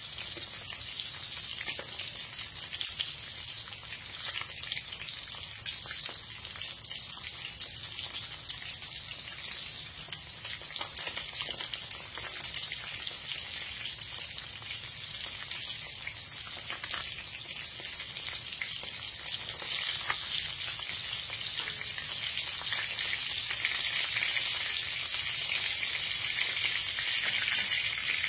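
Whole small fish frying in oil in an aluminum wok, a steady sizzle that grows louder in the last third.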